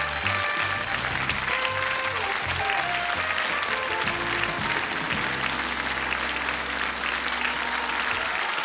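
Sitcom closing theme music over studio audience applause, the tune settling into a long held chord about five seconds in.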